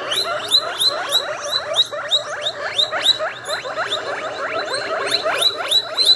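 Guinea pigs wheeking: a rapid string of short, high calls, each dropping steeply in pitch, about four a second.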